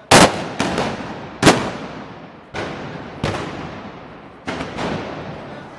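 An irregular series of about eight loud gunpowder bangs, each dying away in an echo, two or three of them close together near the start.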